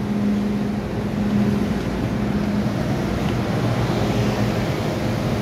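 MTR M-Train electric multiple unit running with a steady low hum and rumble as it pulls away from the platform after the doors close.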